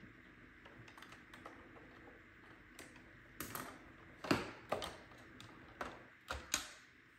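Plastic clicks and knocks from the underside of an iRobot Roomba 960 being taken apart by hand, its bottom cover being worked loose. An irregular scatter of light clicks, with a few sharper knocks in the second half.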